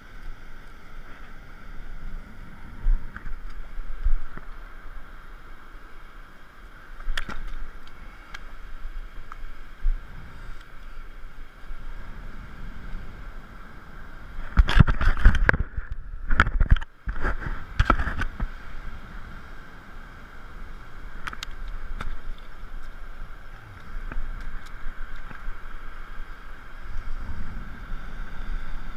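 Ocean surf washing on the beach, a steady rush with a low rumble. A cluster of loud knocks and bumps comes about halfway through.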